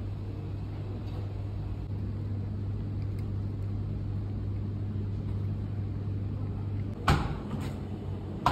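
Steady low hum, with a sharp knock about seven seconds in and another near the end.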